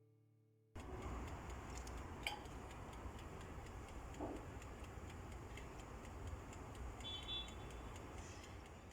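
Oven running with a low hum and steady ticking, typical of a dial timer counting down the bake. It starts suddenly about a second in, and a brief high tone sounds near the end.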